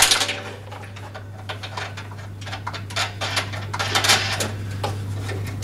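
Plastic nut being turned by hand onto a bolt through a lawn mower's handle bracket: a run of small, irregular clicks and scrapes.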